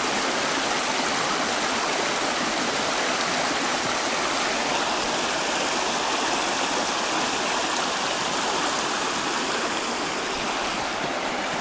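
Shallow rapids of a small rocky stream rushing steadily.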